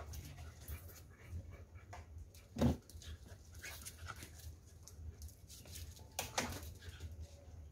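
Dogs giving two short yelps about three and a half seconds apart, the first the louder, with smaller scuffling sounds between, over a steady low hum.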